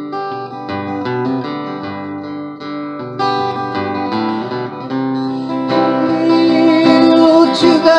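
Acoustic guitar strummed in chords, an instrumental passage between sung lines, growing louder a little past halfway.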